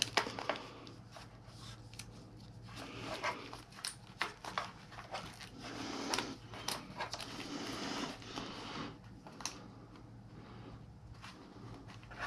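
Handling of plastic-sheathed wiring as it is bundled and fastened with small nylon cable ties: scattered light clicks and short rustles.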